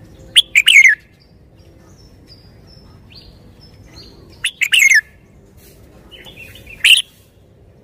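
Red-whiskered bulbul singing: three short, loud phrases of a few quick sweeping notes each, about half a second in, about four and a half seconds in, and near seven seconds, with fainter high notes between them.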